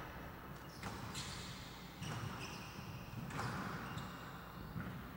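Squash rally: the ball cracking off rackets and court walls, four sharp hits spaced a little over a second apart, with court shoes squeaking on the floor between them.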